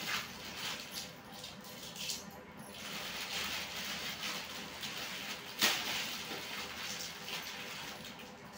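Clear plastic garment packaging crinkling and rustling as a kurti is handled in and out of its packet, with one sharper crackle about five and a half seconds in.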